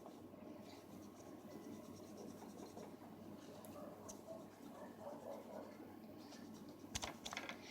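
Faint scratchy rubbing of a paper napkin on a CPU's metal lid, with a few sharp clicks near the end.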